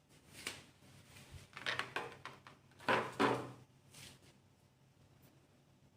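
Packaging and a disposable circumcision stapler being handled as the stapler is taken out of its package: a few short rustling, knocking handling noises, the loudest about three seconds in, then quiet.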